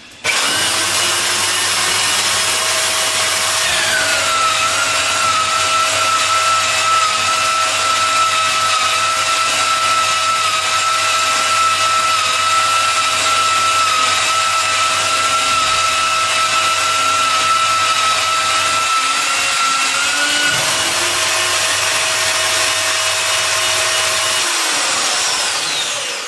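Electric facing tool of a Nowatech ZHCN-315CNC butt-fusion welder running and trimming the ends of plastic pipes. Its motor whine drops in pitch about four seconds in as the blades bite, rises again near twenty seconds as the cut finishes, then winds down and stops near the end.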